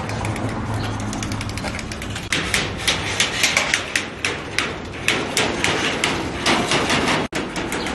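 Metal utility-knife blade dragged across chain-link fence wires, giving a quick, uneven run of sharp clicks as it catches on each wire, starting about two seconds in.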